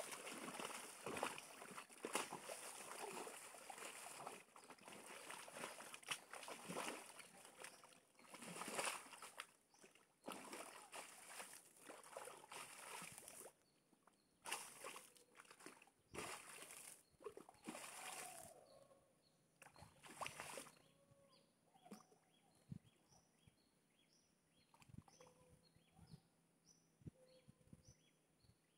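Muddy water sloshing and splashing in irregular bursts as a wild boar struggles in a shallow pool; the bursts die away after about twenty seconds. After that only faint high chirps are left, repeating a little more than once a second.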